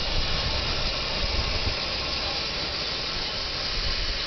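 Steady hiss of steam escaping from a 5-inch gauge live steam locomotive, with a low rumble beneath.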